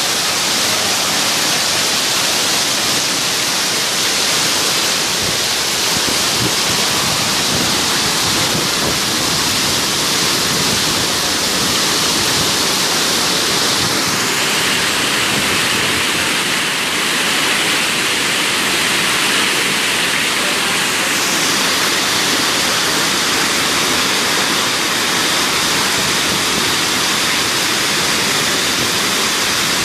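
Heavy rain pouring down in a steady, loud rushing hiss, the hiss changing in tone for several seconds midway through.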